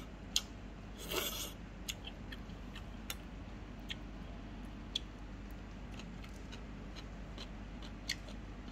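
Scattered small clicks and taps of steel chopsticks picking food from a soup bowl and plate, with one brief scraping rush about a second in, over a steady low hum.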